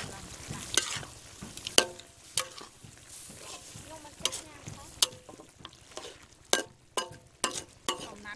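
Metal ladle scraping and clanking against a large aluminium wok as chunks of duck are stirred, with a faint sizzle from the saucy stir-fry. The clanks come irregularly, about a dozen of them, some ringing briefly.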